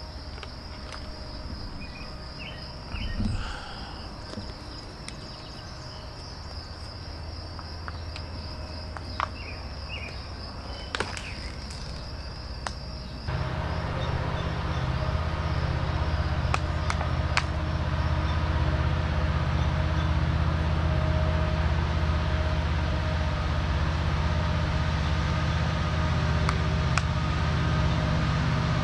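Insects trill steadily in the first half. About halfway through it cuts abruptly to a pair of EMD SD70ACU diesel locomotives at full throttle, hauling a freight train up a steep grade, with a loud, steady low engine rumble.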